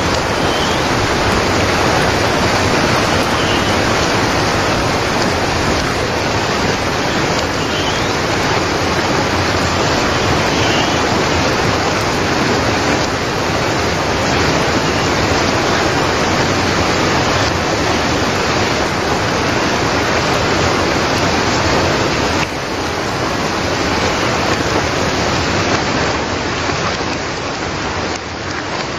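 Heavy rain pouring down: a loud, dense, steady hiss of falling water.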